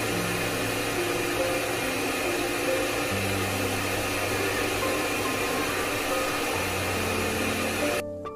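Stand-mounted pet grooming dryer blowing a steady rush of air, with background music underneath. The blowing cuts off suddenly near the end.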